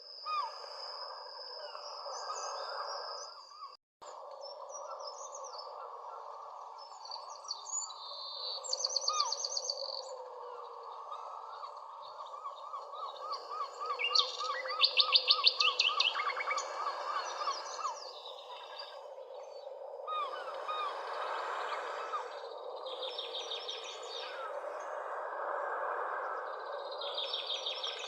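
Birds chirping in a dense, continuous chorus, with bursts of rapid high trills every few seconds. The sound cuts out for a moment just before four seconds in.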